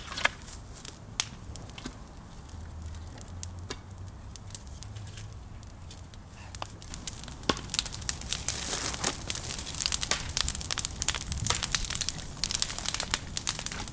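Wood fire of damp apple wood crackling, with scattered sharp pops that come much thicker about halfway through.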